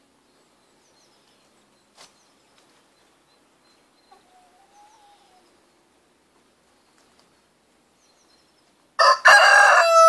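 A rooster crowing once, starting loud and sudden about nine seconds in after near quiet, its long held note still going at the end. Before it there is only a faint click and a soft, short call.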